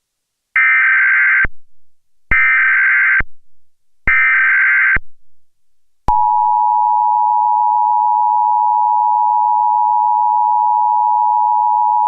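Emergency Alert System SAME header: three identical one-second squawks of warbling digital data tones, followed about six seconds in by the steady two-tone EAS attention signal (853 and 960 Hz), which is still sounding at the end.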